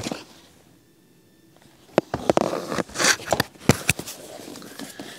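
Cardboard boxes and packed parts being handled on a workbench: after a short quiet spell, a string of sharp knocks and taps as the riser blocks and boxes are set down and moved, with short bursts of cardboard rustling and sliding between them.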